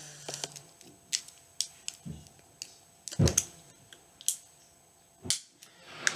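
Scattered clicks and taps of plastic battery packaging being handled, with a heavier knock about three seconds in.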